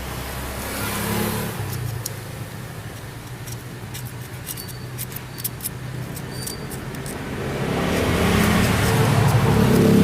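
Small generator engine running, dropping back in the middle and then speeding up and growing louder over the last couple of seconds. Light sharp clicks come in the middle.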